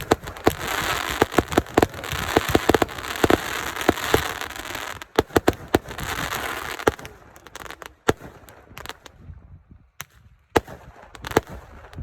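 Fireworks going off: rapid sharp bangs over a dense crackle for about the first seven seconds, then thinning to scattered pops that stop near the end.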